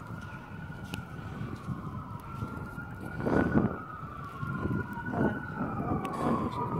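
A siren wailing, its pitch gliding slowly up and down, over a rough background of noise, with a brief louder patch of noise about three seconds in.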